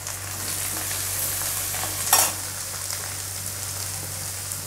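Chopped onions and curry leaves sizzling in hot oil in a steel kadai as they are stirred with a steel ladle, with one short clatter about two seconds in.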